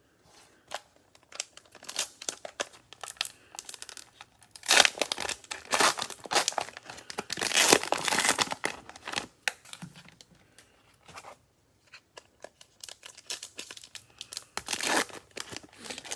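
Plastic cello wrapper of a football card pack being torn open and crinkled, in irregular crackling bursts, busiest in the middle with a short lull near two-thirds of the way through.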